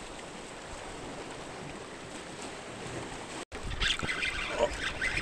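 Ocean surf washing over shoreline rocks, a steady rush of water. About three and a half seconds in it breaks off for an instant and comes back louder and choppier.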